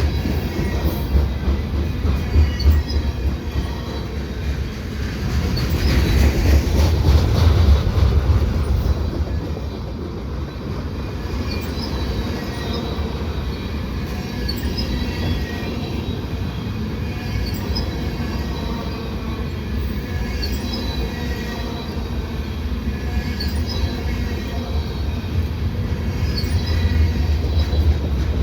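A long freight train's cars rolling past close by, a continuous heavy low rumble of wheels on rail that swells for a few seconds early on and then settles. Faint, scattered high-pitched wheel squeals sound throughout.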